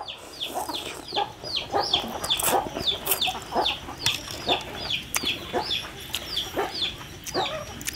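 Chickens calling nearby: a steady string of short, high, falling peeps, two or three a second, with close chewing and slurping sounds mixed in.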